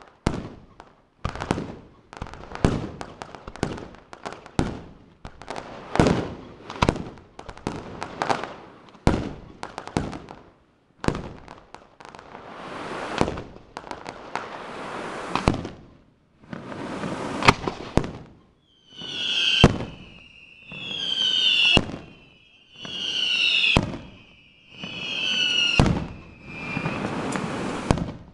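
Aerial fireworks display: a rapid string of bangs and crackles from bursting shells. About two-thirds of the way in it gives way to a run of shrill whistles, each swelling and cutting off sharply, about one every two seconds.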